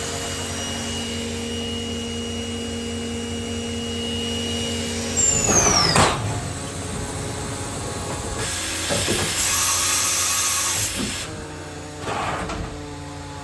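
Makino a61 horizontal machining center's spindle running with a steady whine at its maximum 14,000 RPM, then winding down in a falling whine about five seconds in, ending in a clunk. Then comes a burst of air hiss and mechanical clunks from the automatic tool change.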